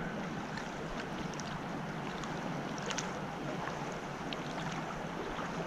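Steady rush of river current flowing along a drifting fishing boat, with a few faint light ticks.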